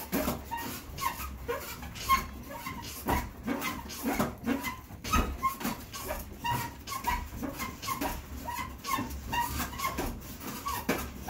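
Elliptical trainer in use: rhythmic squeaking and knocking, about two squeaks a second, keeping time with the strides.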